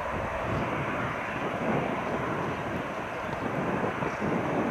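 Distant jet noise from an Airbus A320-214's CFM56 turbofan engines: a steady rush as the airliner moves away down the runway.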